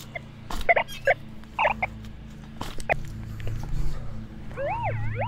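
Metal detector target tones: several short beeps of differing pitch as the coil passes over buried metal, over a steady low hum. Near the end a wavering wail rises and falls in pitch.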